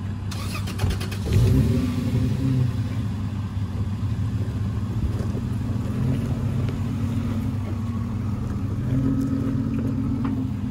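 Toyota Land Cruiser engine running under load, revving up about a second in as it tows a disabled pickup on a strap, then pulling steadily. A short clatter of clicks near the start.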